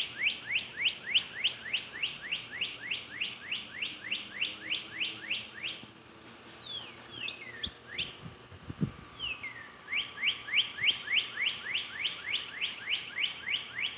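A songbird repeating a short rising chirp about three times a second; about six seconds in it breaks off for a few falling whistled notes, then takes up the rising chirps again.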